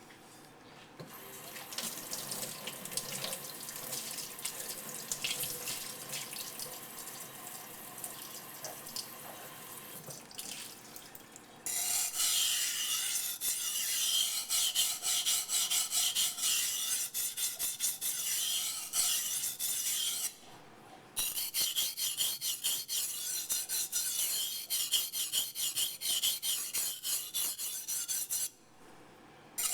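Becker BK9 knife blade being stroked rapidly back and forth on a coarse wet waterstone, a gritty grinding rasp while the bevel is thinned and shaped. The strokes are softer for about the first ten seconds, then much louder, with two brief pauses.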